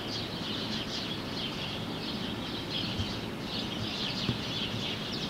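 A crowd of small birds chirping busily, with many short overlapping chirps, over a steady low city rumble.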